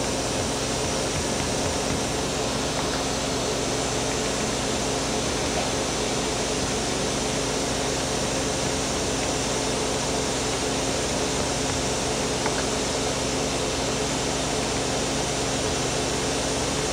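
Steady hum of a Hyundai-Kia SKT-21LMS CNC turning/milling center under power, with no cutting, and a faint click about twelve seconds in.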